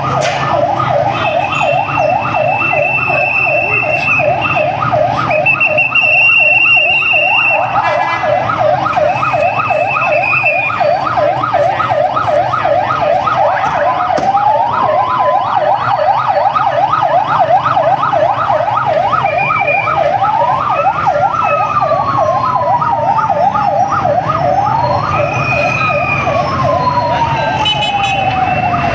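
Emergency vehicle sirens: a fast yelp sweeps up and down several times a second throughout. From about halfway, a second siren's wail rises quickly and falls slowly three times over it, with a low engine hum underneath.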